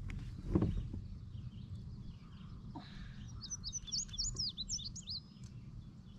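A songbird sings a quick run of high chirping notes, rising and falling, about midway through, over a low steady rumble. A single thump sounds about half a second in.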